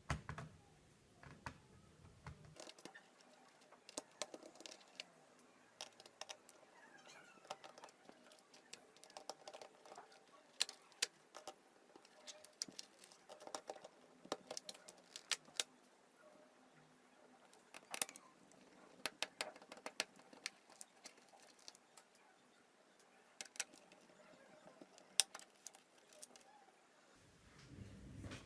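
Irregular small clicks and taps of hands working on an HP 620 laptop: plastic case parts, screws and small components being handled.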